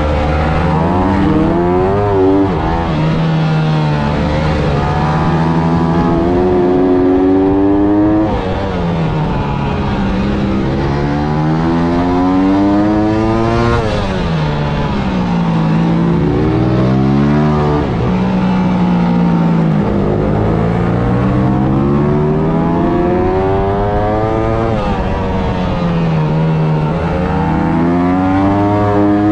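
Single-cylinder four-stroke engine of a Honda CRF250 supermoto at race pace, heard from the bike itself: the pitch climbs through the gears in stepped rises with short dips at each upshift, then falls away as the rider brakes and downshifts for the corners, several times over.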